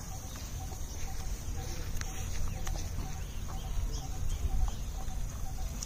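A bird repeating one short, low note about twice a second over a steady low rumble, with a few light clicks from a dog chewing a rubber garden hose.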